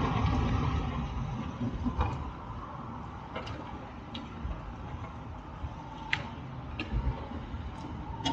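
Low engine and road rumble of a moving tour vehicle heard from inside, with scattered light clicks and rattles at uneven intervals.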